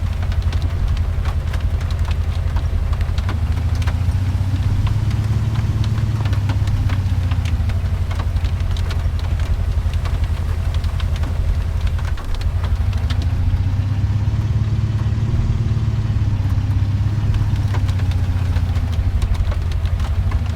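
A car's engine and road noise running steadily, with the engine pitch slowly rising and falling a few times. Rain is ticking against the car throughout.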